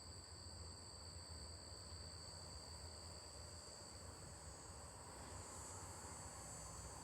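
Faint insect chorus: crickets trilling steadily in two high pitches over a low, steady rumble.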